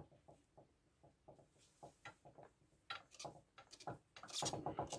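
Scattered light clicks and knocks of a spring compressor's hook and threaded rod being fitted and adjusted on a car shock absorber's coil spring. The handling grows busier toward the end, finishing in a quick run of rattling clicks, the loudest part.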